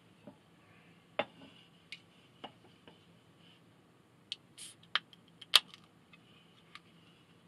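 Scattered light clicks, taps and knocks of small objects being handled on a table. The sharpest click comes about two-thirds of the way in, just after a brief soft hiss.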